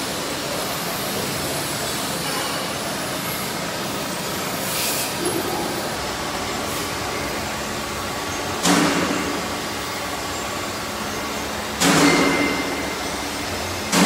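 Steady machinery noise of a casting workshop, with three sudden loud bursts a few seconds apart, each fading over about a second.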